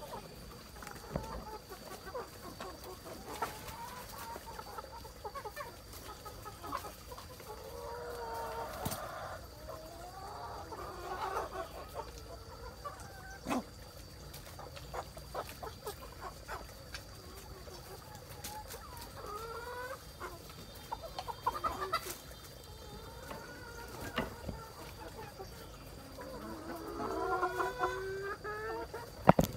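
Free-range chickens clucking and calling as they forage, in short scattered calls with a denser run of louder, longer calls near the end. A sharp click just before the end is the loudest sound.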